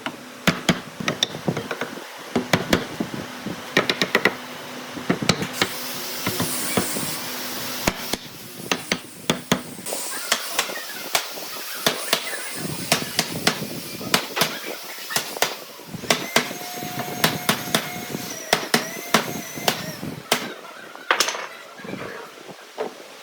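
Irregular sharp knocks and taps of hand tools striking wood, a few each second, as in hammer or mallet work at the bench.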